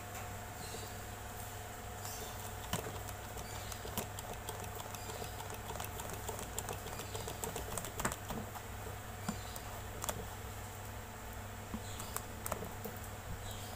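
Scattered light clicks and taps from handling a hydraulic cable-lug crimping tool and a welding cable with its lug, irregular and a few a second at most, over a steady low hum.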